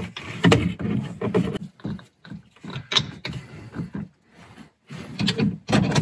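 Seat-belt anchor hardware being handled and fitted to the upper mount on the B-pillar: a few irregular clicks and knocks of metal against the plastic trim, with rustling, and a cluster of knocks near the end.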